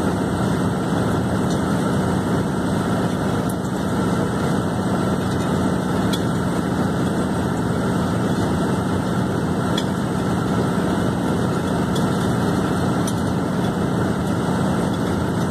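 Casagrande C6 drill rig drilling a cased hole with a down-the-hole hammer: a steady, loud mechanical din of the hammer and the rig running, while compressed air flushes the cuttings out as dust.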